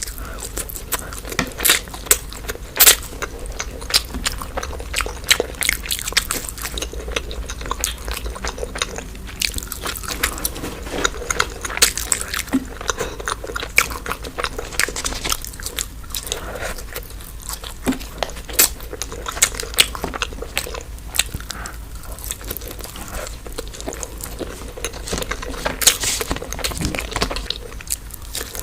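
Close-miked eating: a person biting and chewing crunchy food, with a dense run of crisp crackles and wet mouth clicks.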